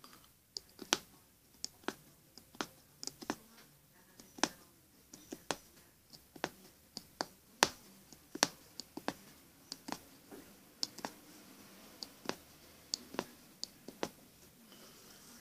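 Metal punch needle (aguja mágica) stabbing in and out of fabric stretched tight in an embroidery hoop: a series of sharp, irregular clicks, roughly two a second.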